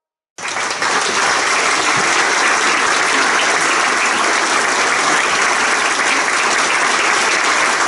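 Audience applauding, breaking out suddenly about half a second in and keeping up steadily.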